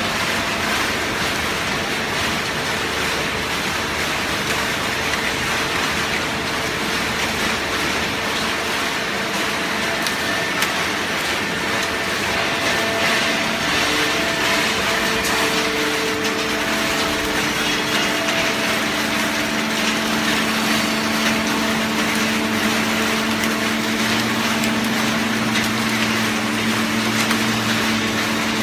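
Automatic cardboard baler running: a steady machine noise with a hum on top, its tones shifting, with a lower hum coming in about two-thirds of the way through.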